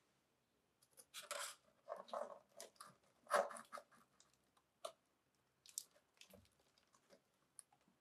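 Concrete top slab being set onto a concrete frame: three short gritty scrapes of concrete on concrete, then light knocks and clicks as it is nudged into place.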